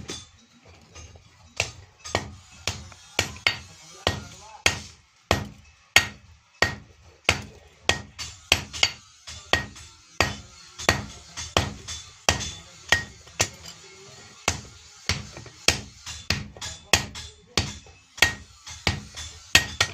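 Hand hammer striking hot iron on an anvil while a katari blade is forged: an irregular run of blows, about two to three a second, each with a short metallic ring.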